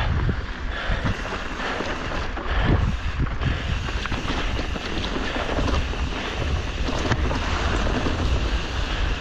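Wind buffeting the microphone of a camera on a mountain bike while it is ridden over a rough dirt trail, with scattered knocks and rattles from the bumps.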